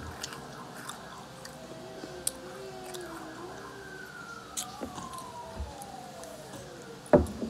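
A faint siren wails, its pitch sliding slowly down over several seconds, while a gummy strawberry straw candy is chewed close by with small clicks. One sharp knock comes near the end.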